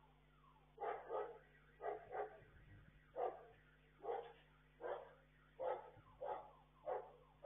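A dog barking over and over, roughly one bark a second, some barks coming in quick pairs.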